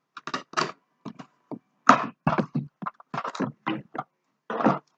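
A product being unpacked by hand: an irregular string of cracks, crinkles and rustles of its packaging.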